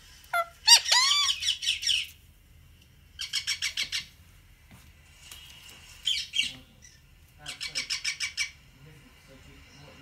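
Indian ringneck parakeet calling: a short squawk, then a string of rising-and-falling squawks, then several bursts of fast repeated harsh notes, about nine a second.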